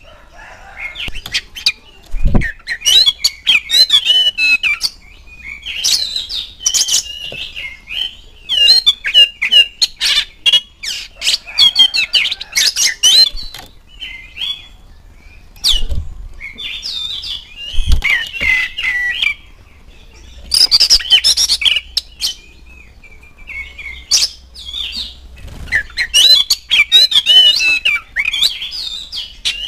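Oriental magpie-robin (kacer) singing: loud bursts of quickly varying whistled notes mixed with rapid clicking chatter, broken by short pauses. A couple of dull thumps come at about two seconds in and again at about eighteen seconds.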